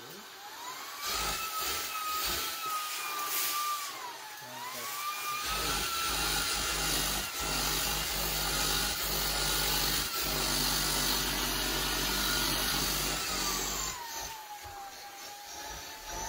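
Shark Cordless Pet Plus stick vacuum running: a motor whine that rises and dips in pitch. From about five seconds in, a louder rubbing noise with a low hum joins it for about eight seconds, then eases off as the whine drops.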